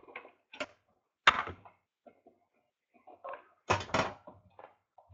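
Knocks and scrapes of a sealed trading-card box being handled and opened by hand. There is a loud knock about a second in and a close pair of knocks near four seconds.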